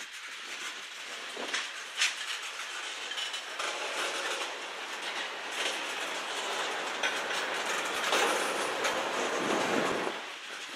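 Freight cars of a CN manifest train, covered hoppers among them, rolling past with their steel wheels clattering on the rails. There is a sharp clank about two seconds in. The sound grows louder around eight seconds in and eases off near the end.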